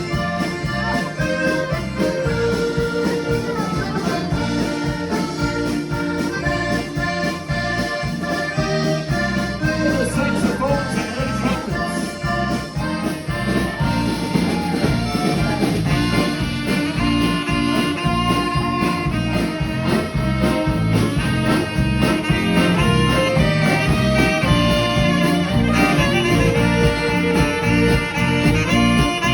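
A band playing a lively tune, with accordion and brass over a steady beat.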